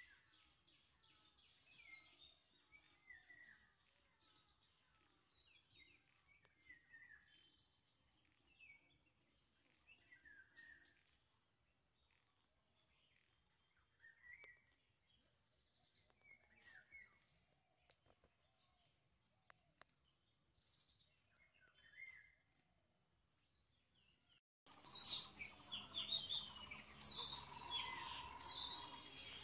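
Faint wild birds calling: short falling chirps every second or two over a steady high-pitched hiss. About 24 seconds in, the sound cuts to louder, busier bird chirping.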